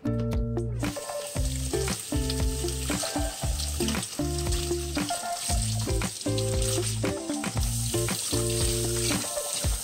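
Kitchen tap turned on about a second in, with water running into a stainless steel sink and splashing over hands rinsing smoked fish: a steady hiss. Background music plays underneath.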